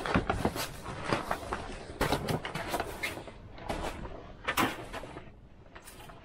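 Footsteps on packed snow and the rustle of the ice shelter's fabric walls as a person steps into a pop-up ice fishing shelter: a run of irregular crunches and scuffs.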